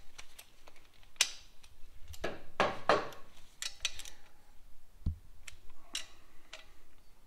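Irregular metal clicks and short rattles of a hand socket driver working the cylinder-head nuts of a BMW R100 boxer engine as they are run down crisscross, with a cluster of clattering clicks two to three seconds in and a dull knock around five seconds.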